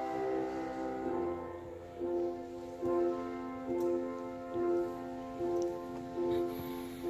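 Slow keyboard accompaniment: sustained chords with one note repeated about once a second, while the choir is not singing.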